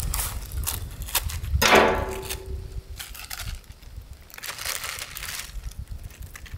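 Footsteps crunching through dry vegetation, an irregular run of crackles and snaps.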